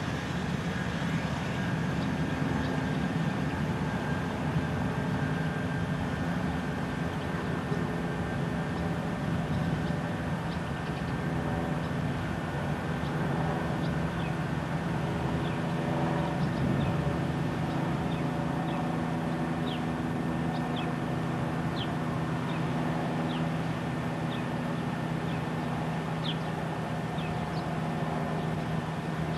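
Distant jet airliner engines running steadily on the ground, a continuous drone with a whine in it. A few short, high chirps come in during the second half.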